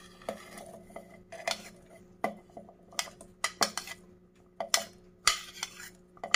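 Irregular clinks and scrapes of a metal spoon against a plate and a stainless-steel mixer-grinder jar as boiled chickpeas are scraped off the plate and drop into the jar.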